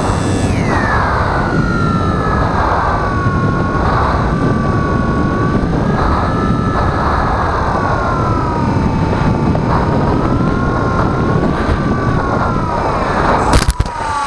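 Bixler 2 RC plane's electric brushless motor and propeller whining overhead. The whine drops in pitch about half a second in, then wavers up and down with throttle and passes, over wind rumbling on the microphone. A sharp knock near the end.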